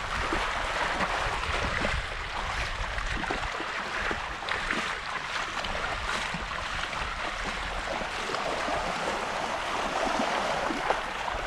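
Shallow seawater sloshing and small waves washing across a sandbar, with wind rumbling on the microphone.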